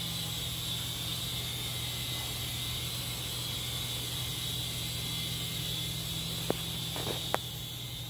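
Syma S51H toy RC helicopter flying, its small electric motors and rotors whirring steadily with a high whine over a low hum. Two sharp clicks come near the end, a little under a second apart.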